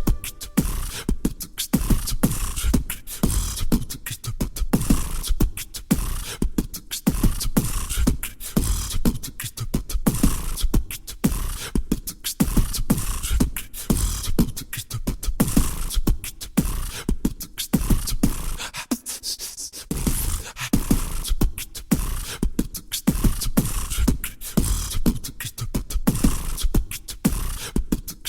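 Background music with a fast, steady percussive beat, which briefly drops out its low end about nineteen seconds in.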